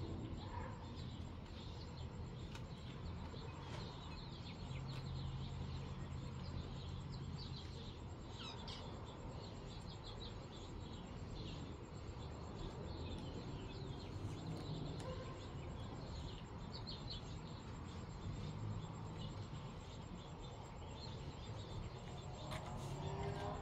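Birds chirping in short, scattered calls over a low, steady hum.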